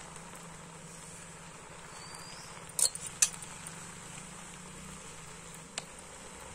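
Two sharp metallic clinks, a steel plate knocking against the rim of a steel cooking pot, about three seconds in, and a fainter click near the end, over a steady outdoor background hiss.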